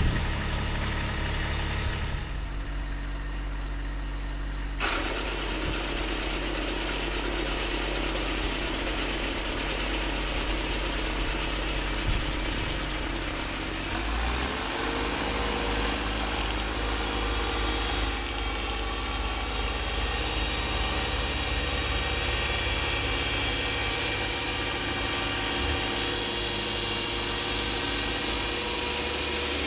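Kubota B2601 compact tractor's three-cylinder diesel engine running with the mid-PTO-driven front snowblower turning, a steady mechanical clatter. About halfway through it grows louder, with a steady high hiss as the blower throws snow.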